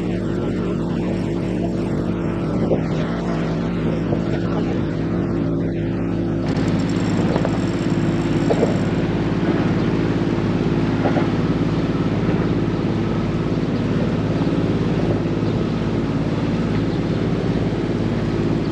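Sailboat's inboard engine running steadily under power, a low drone with a haze of wind and water noise that grows louder a little over six seconds in.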